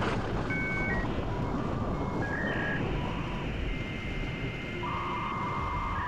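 Electronic outro music: a bed of hiss with held synthetic tones and beeps that step from pitch to pitch every second or so.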